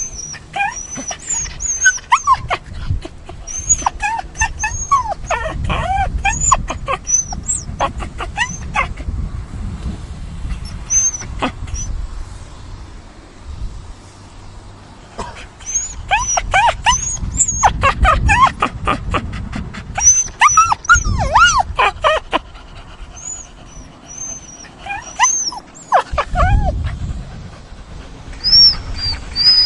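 Dog whining and whimpering: many short, high-pitched cries in bursts, with brief pauses between the bursts.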